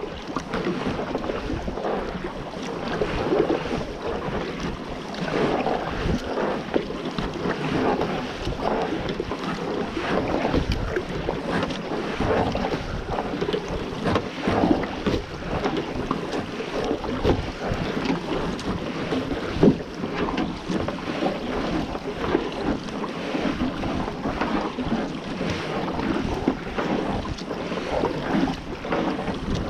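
Kayak paddle strokes through calm sea water, with splashing and dripping from the blades, under wind blowing on the microphone.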